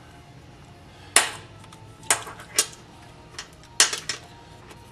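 Small metal nuts and a hand tool clinking as the nuts are run onto the studs of a gauge cluster's printed circuit board: five or six sharp clicks, the loudest a little over a second in.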